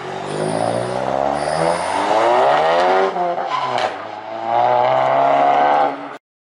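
Volkswagen Mk7 Golf GTI's turbocharged 2.0-litre four-cylinder, on a muffler-deleted exhaust, accelerating hard away. The revs climb, drop at a gear change about three seconds in, then climb again before the sound cuts off abruptly just before the end.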